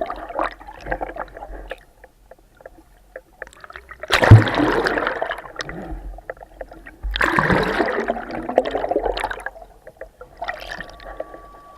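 Water splashing and gurgling, with two loud bursts of splashing about four and seven seconds in. The first begins with a sudden thump.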